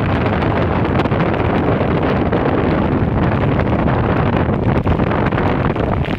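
Steady loud rush of floodwater pouring across a submerged road, mixed with wind buffeting the microphone.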